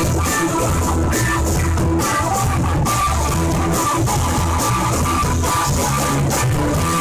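A live rock band playing: two electric guitars over a steady bass line and drum kit with cymbals.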